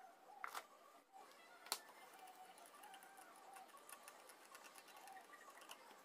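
Near silence, broken by a few faint clicks and one sharp tap a little under two seconds in: a circuit board being handled and set down on a wooden tabletop.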